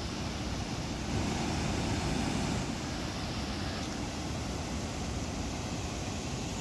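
Water rushing steadily out of a dam's sluice outlets and churning into the pool below.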